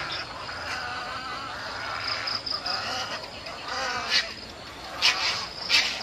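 A roosting colony of white egrets calling, many overlapping calls with wavering pitch, and three louder calls about four, five and nearly six seconds in. A cricket chirps in quick, even pulses alongside.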